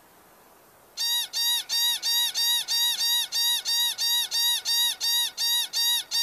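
Pika calling in a rapid series of short, high calls, about four a second, starting about a second in. It is a warning call telling other pikas that this patch is taken.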